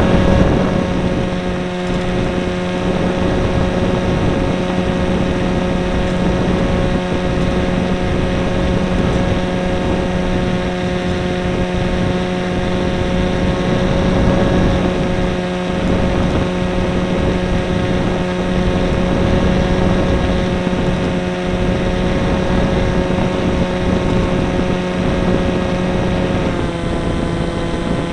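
Radio-controlled model airplane's motor and propeller running loud and steady at a constant pitch, heard from the camera carried on board. About 26 seconds in the pitch steps down slightly.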